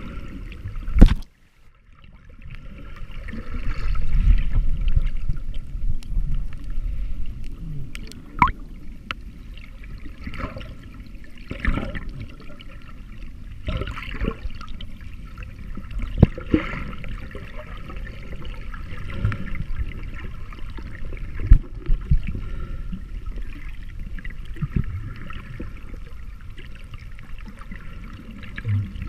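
Underwater sound picked up by an action camera while snorkeling: a steady muffled rumble of moving water with bubbling, scattered clicks and knocks against the camera, and one sharp knock about a second in followed by a brief drop-out.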